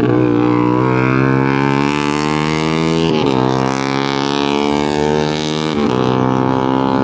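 Kawasaki ZX-25R SE's 250 cc inline-four running through an aftermarket Austin Racing exhaust while riding. The engine note falls slowly over the first three seconds, with two brief breaks in it, about three seconds in and near six seconds.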